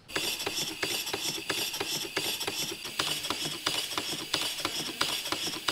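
Small vertical model steam engine running on compressed air, its crank and valve gear clicking in a steady rhythm of about three to four clicks a second over a continuous hiss of exhaust.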